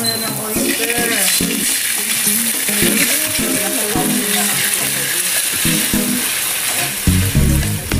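Chopped garlic sizzling in hot oil in a wok while a spatula stirs it through the pan, under background music that turns heavier in the bass near the end.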